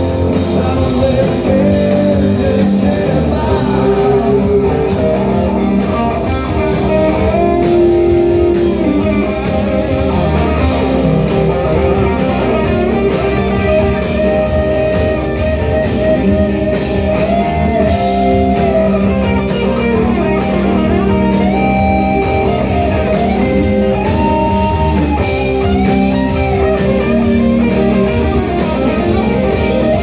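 Live blues-rock band playing: drums, bass, keyboard and electric guitars. Through the second half an electric guitar plays a lead line with bent notes.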